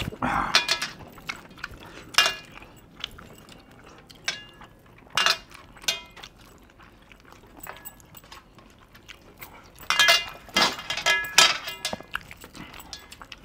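Eating by hand from a stainless steel plate: fingers and metal rings scrape and clink against the plate while scooping food, with chewing between. The clinks come in scattered clusters, busiest about ten to twelve seconds in.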